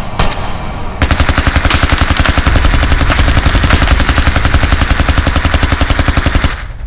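A gunshot right at the start, then about a second in a long burst of rapid automatic gunfire, some ten shots a second, that runs for about five seconds and stops abruptly.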